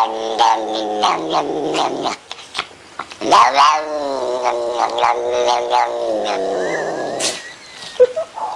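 Domestic cat yowling in long, wavering drawn-out calls: one trails off about 2 seconds in, and a second begins about a second later and is held for about four seconds, dropping low in pitch as it ends.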